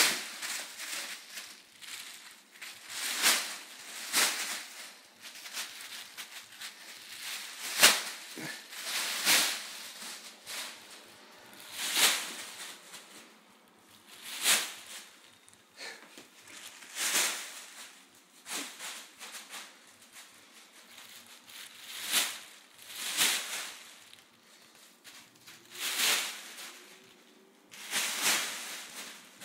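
Thin plastic painting drop cloth crinkling and rustling as a ferret scampers over and burrows under it, in loud irregular bursts every one to three seconds.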